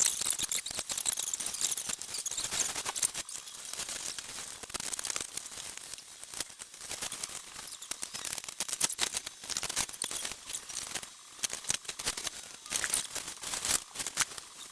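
Rapid rustling, scratching and clicking of things being handled, going on throughout with uneven bursts.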